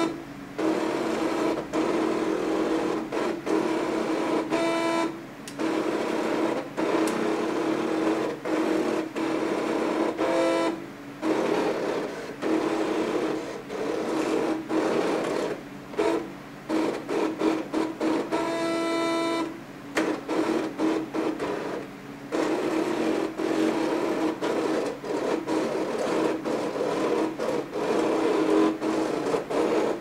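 Cricut electronic cutting machine cutting a layer from heavy cardstock: its motors whir and whine as the blade carriage and mat move, in short runs that stop and restart every second or so.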